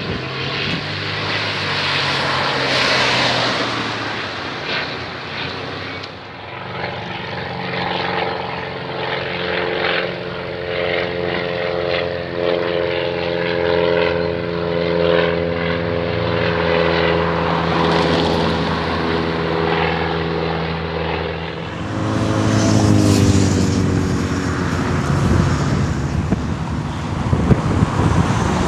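Light propeller aircraft piston engines droning overhead. About 22 seconds in, the engine note gets louder and then drops in pitch as an aircraft passes. Near the end, wind buffets the microphone.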